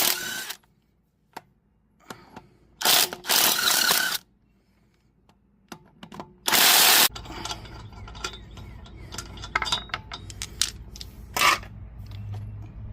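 Impact wrench running in several short bursts, each half a second to a second long, spinning the 19 mm lug nuts off a rear wheel. Clicks and clatter of handling follow, over a low hum, with one more brief burst late on.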